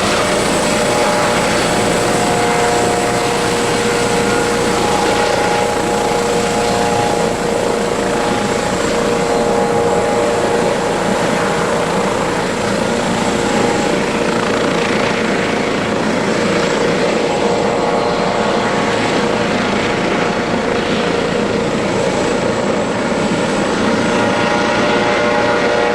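Airbus Helicopters EC155B1 twin-turbine helicopter running close by: a steady turbine whine with several held tones over the dense rotor noise, unchanging in level.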